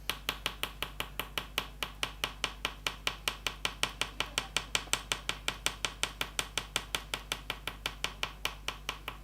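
An oil pastel tapped quickly and evenly against paper to make dots, about six or seven sharp taps a second.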